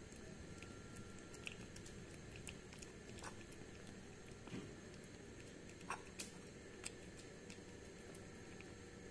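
Tabby kitten eating wet food from a saucer: faint, irregular chewing clicks over a steady low hiss, with a couple of sharper clicks about six seconds in.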